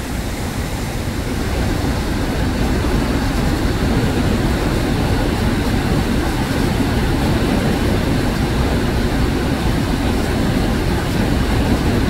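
Steady rushing roar of a waterfall and river rapids, strongest in the low rumble, swelling slightly about a second in.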